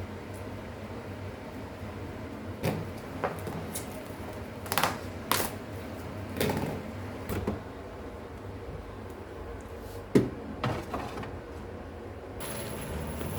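Irregular knocks, clicks and rustles of household things being handled, the sharpest knock about ten seconds in.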